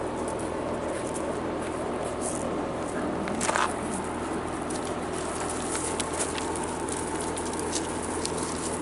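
Australian Shepherd puppies scuffling and tussling on gravel: scattered light patters and scratches over a steady background hiss, with one short, louder sound about three and a half seconds in.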